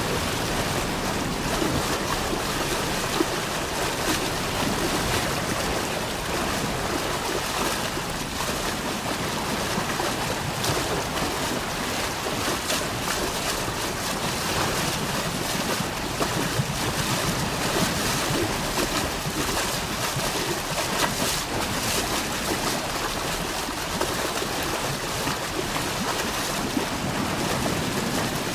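Fishing boat underway at sea: a steady rush of water along the hull and wind on the microphone, with occasional short splashes or gusts.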